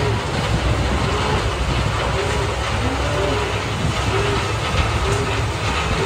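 Tractor running a bale processor that shreds and blows straw bedding across the barn pens: a steady low engine drone under a dense rushing noise of flung straw. Short rising-and-falling tones recur over it about once a second.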